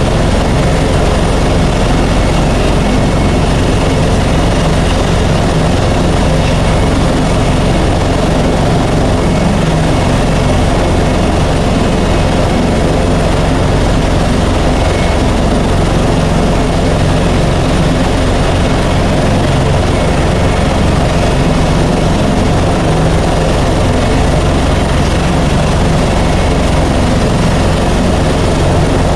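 Helicopter in flight: a loud, steady drone of engine and rotor that does not change.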